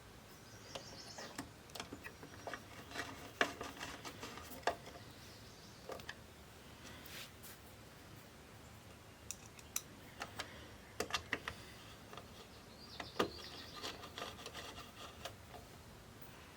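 Faint handling noises: scattered light clicks and taps with some soft scraping, as small parts and tools are picked up and set down. They come in two busier clusters, a few seconds in and again past the middle.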